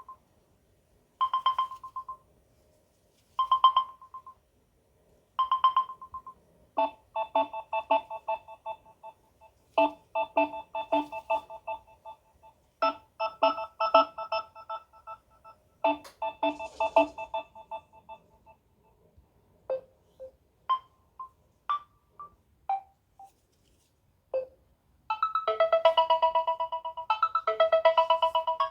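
Stock Samsung One UI 4.1 ringtones playing one after another. First comes a short tone repeating about every two seconds. Then a busier melodic electronic pattern, then a few sparse single notes, and near the end a denser, louder tune begins.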